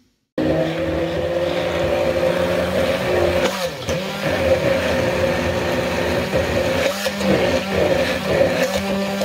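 Electric hand blender running as it coarsely grinds green chutney (mint, coriander, garlic, chilli) in a plastic beaker. The motor starts suddenly just after the start and runs steadily, its pitch sagging briefly a couple of times as the blades take up the herbs.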